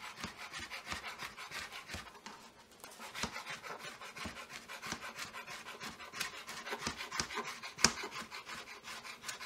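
Chef's knife chopping crisp-fried turkey bacon on a plastic cutting board: quick, steady taps of the blade on the board, several a second.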